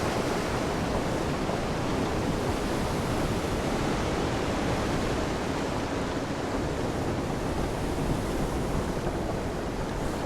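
Steady rush of wind on the microphone mixed with the wash of the sea around a small boat, an even noise without any distinct events.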